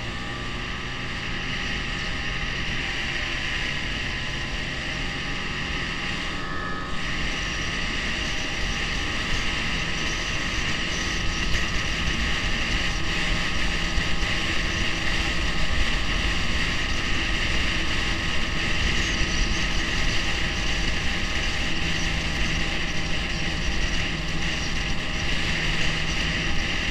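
Snowmobile engine running under way across snow. Its pitch rises in the first few seconds, and it grows gradually louder as the sled picks up speed.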